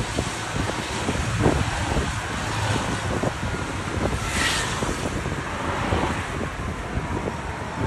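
Wind buffeting the microphone over the rumble of a ride in an open golf cart, with frequent small knocks and jolts. A brief hiss comes about halfway through.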